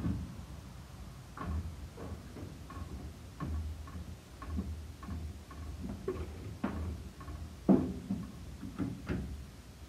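Irregular metal clicks and knocks, about one every half second to a second, as the boom of a 1936 Ford crane truck is raised by hand, with one louder knock about two thirds of the way in.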